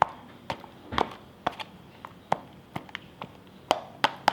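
Spoon knocking against a bowl while stirring slime: a string of irregular sharp clicks, about two a second.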